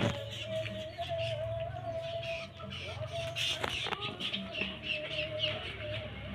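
Small bird giving a run of short high chirps about three to five seconds in, over a steady hum and a few light clicks.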